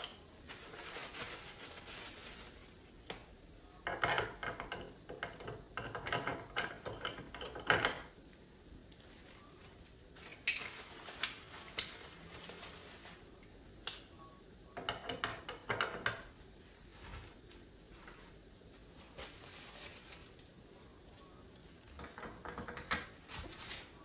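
Dishes and cutlery being handled in a kitchen, clinking and clattering in several spells of a few seconds each, with quieter pauses between.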